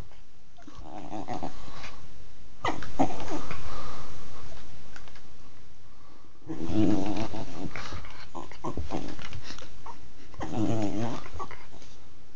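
Dog growling in play while mouthing and wrestling a person's hand: about five separate growls, each about a second long, with short gaps between them.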